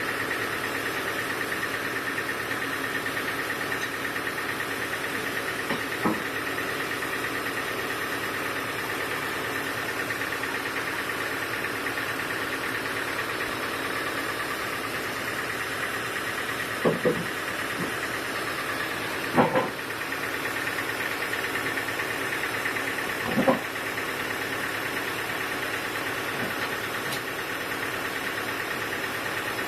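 Sawmill machinery running steadily with a constant hum, and a few sharp knocks, the loudest about two-thirds of the way in.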